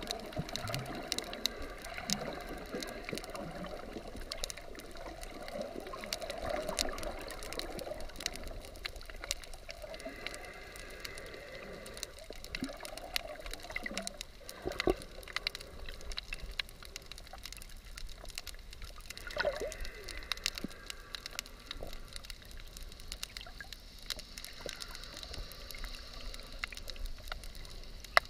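Underwater sound picked up by a submerged GoPro: water moving and bubbling, with scattered crackling clicks throughout.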